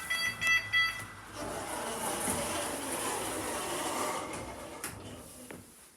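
Passenger lift's electronic beeper giving a rapid run of high beeps in the first second. A steady rushing noise follows for a few seconds, then fades away.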